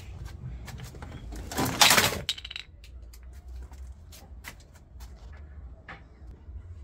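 Handling noise as a washing machine motherboard is picked up and shown: a loud rustle about two seconds in, then scattered light clicks and taps, over a steady low hum.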